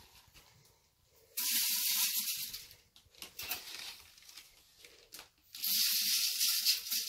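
Flax seed poured from a measuring cup into a metal bucket of grain, a hissing pour twice: once about a second and a half in and again near the end.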